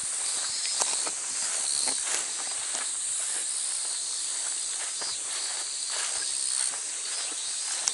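A chorus of cicadas buzzing steadily at a high pitch, with scattered footsteps underneath.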